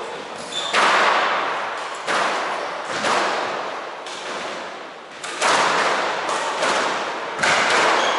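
Squash ball being struck by rackets and smacking off the court walls, about five sharp hits one to two seconds apart, each ringing out in the court's echo.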